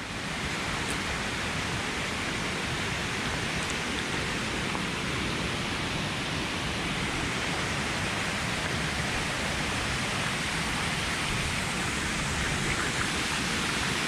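Fast mountain stream rushing over rocks as a steady white-water noise, growing slightly louder toward the end.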